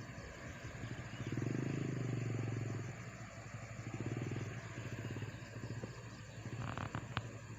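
Excavator's diesel engine running as the machine crawls slowly, swelling louder about a second in and again around four seconds, with a few sharp clanks near the end.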